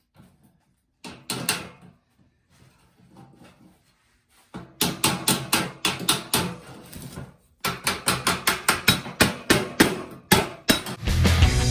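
Hammer blows on metal: a few separate knocks, then a rapid, even run of strikes at about three to four a second. Rock music starts near the end.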